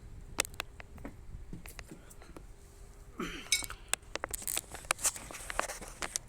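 Small metal parts and tools clicking and clinking as a tankless water heater's gas valve assembly is put back in place, with a short scrape about three seconds in and quicker clinking after it.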